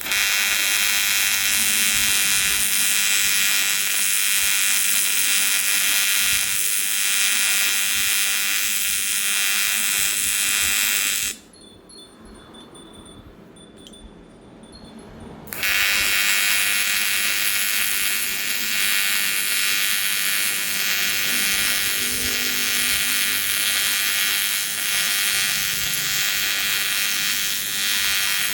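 AC TIG welding arc on aluminium: a steady high buzz that stops suddenly about eleven seconds in and is struck again some four seconds later, then held.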